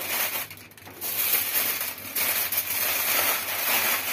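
Aluminium foil crinkling and rustling as hands fold and press it shut around a fish to seal a papillote parcel. There is a short lull about half a second in, then steady crackling.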